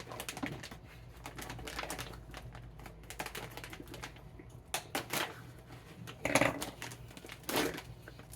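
Plastic snack packet crinkling and crackling as it is handled and worked open, with a few louder crackles in the second half.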